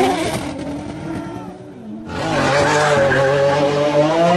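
Sports car engine revving and dying away, then, after an abrupt cut about two seconds in, a louder engine note held at a steady pitch, with tire noise.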